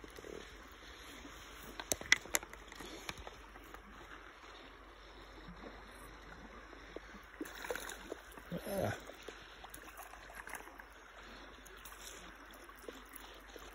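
Quiet river water running and lapping around a small boat while a hooked chub is played on a fly line. There are a few sharp clicks about two seconds in, and a louder splashy rush around eight to nine seconds in.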